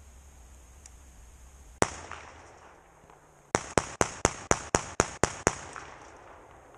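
SDS Cheetah 12 semi-automatic 12-gauge shotgun firing buckshot: a single shot, then about nine more in quick succession at around four shots a second.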